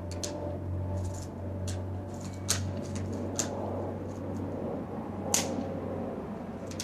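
A BB gun giving about six short, sharp clicks and snaps over a steady low hum; two of them, about two and a half and five seconds in, are clearly louder than the rest.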